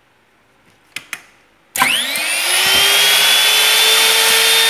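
Two sharp clicks, then the spindle motor of a Minicam C-series mini cam-lock drilling machine starts up. Its whine rises in pitch within a fraction of a second and settles into a loud, steady high-speed run.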